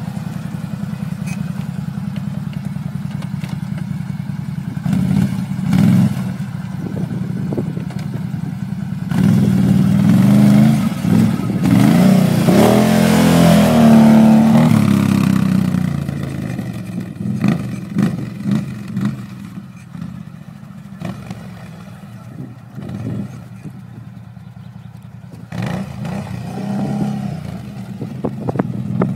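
Can-Am Renegade 800 quad's V-twin engine idling, blipped briefly, then revved hard with rising and falling pitch for several seconds as the quad pulls away. It then fades with short throttle blips as it rides off, growing louder again near the end.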